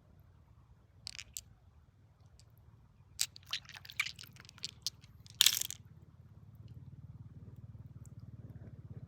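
A series of sharp crunches and scrapes, like stones and gravel being handled, loudest about five and a half seconds in, over the steady low hum of a motor that grows louder near the end.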